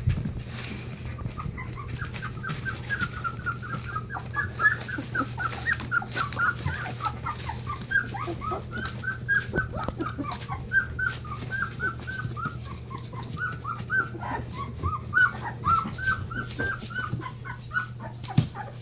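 Newfoundland puppies about two and a half weeks old whimpering and squealing, many short high squeaks overlapping several times a second, over a steady low hum. The puppies are hungry and crying to nurse.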